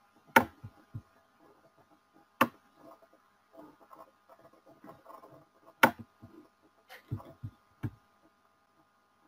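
A few sharp clicks a couple of seconds apart, each followed or joined by dull low knocks, over a faint steady hum and low murmuring.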